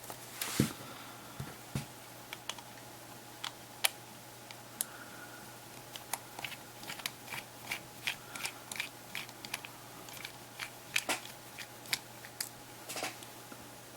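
Small screwdriver backing a screw out of a media player's plastic housing: a string of light, irregular clicks and ticks as the driver and screw turn and are handled, denser in the second half.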